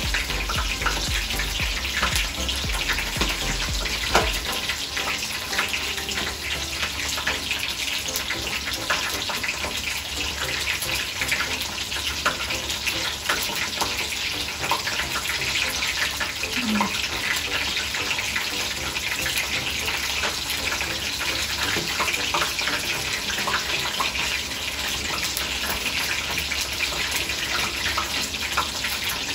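Steady rushing hiss, like running water, with light handling ticks and crinkles over it.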